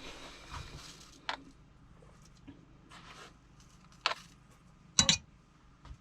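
Kitchen utensils clicking and knocking: a sharp click about a second in, another about four seconds in, and a louder double knock near the end.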